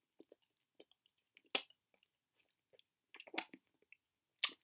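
Faint sounds of a person chewing a mouthful of scrambled egg: soft lip smacks and mouth clicks, with a louder one about one and a half seconds in and a small cluster a little past three seconds.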